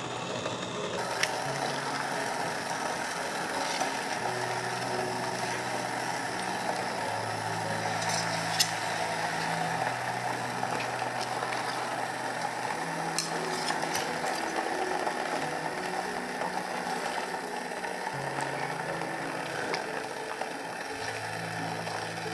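Continuous mechanical grinding noise with a few sharp clicks, over soft background music with slow held low notes.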